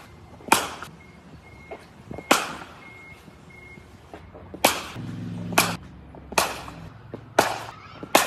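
A series of about seven sharp cracks, roughly a second apart, each ringing on briefly.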